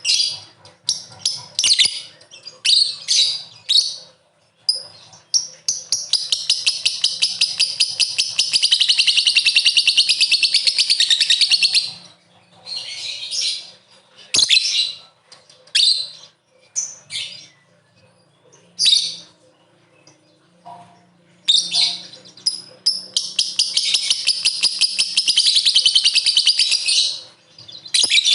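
Lovebird calling with sharp, high chirps, broken twice by a long, rapid chattering trill of several seconds: the 'ngekek' rattle.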